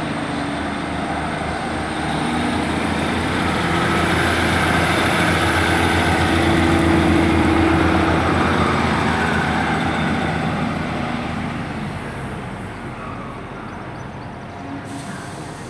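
Class 150 Sprinter diesel multiple unit pulling away, its underfloor Cummins diesel engines running under power. The sound grows louder as the cars pass, peaking about halfway through, then fades as the train draws away.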